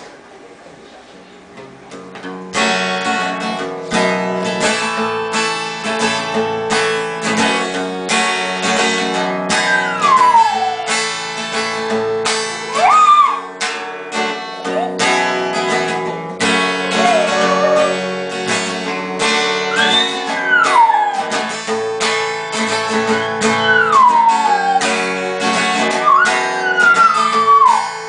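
Acoustic guitar strummed continuously from about two and a half seconds in. From about ten seconds in a dog howls along with it in long, mostly falling howls, about six of them a few seconds apart.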